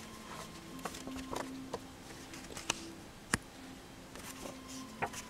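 Faint handling of printed photographs: a few soft clicks and rustles as the prints are moved and swapped, over a faint steady hum.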